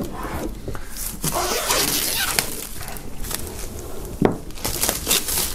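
Plastic shrink-wrap film crinkling and rustling as it is pulled off a cardboard box, then a few sharp clicks.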